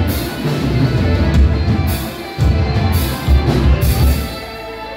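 Live rock band playing loudly: distorted electric guitars and bass over a drum kit, with heavy hits and cymbal crashes about once a second.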